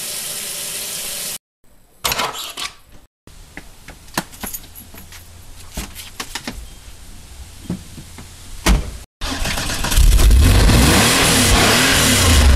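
Running water from a kitchen tap hisses briefly. Then come clicks and knocks of a car door being handled, a single loud door slam, and in the last few seconds the loud, steady, low exhaust note of a Porsche 911's air-cooled flat-six engine running.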